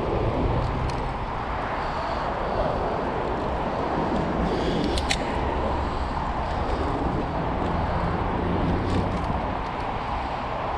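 Street traffic and road noise heard from a bicycle ridden through town, a steady rumble and hiss, with one sharp click about five seconds in.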